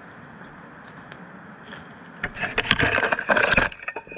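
A steady rushing background, then about two seconds in a loud burst of crunching and cracking that lasts about a second and a half.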